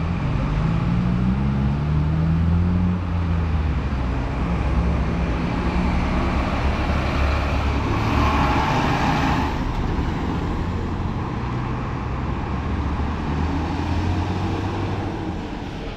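City street traffic with a large vehicle's engine running close by, its low hum rising and falling in pitch in the first couple of seconds. A louder rush of passing traffic comes about halfway through.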